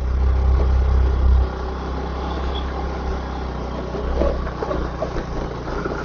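Motorcycle engine running while riding along a road, louder for the first second and a half and then steady.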